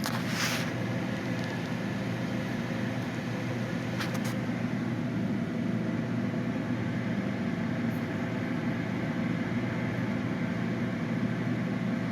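Steady low machine hum with a faint hiss over it, unchanging throughout. There is a brief click about half a second in and another about four seconds in.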